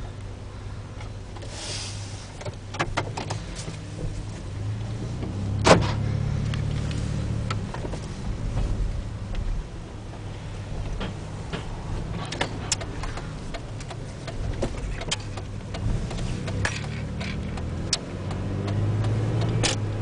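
Car engine and road noise heard from inside the cabin, with a steady low hum that grows louder twice as the car pulls away, around five seconds in and again near the end. Scattered light clicks and one sharp knock about six seconds in.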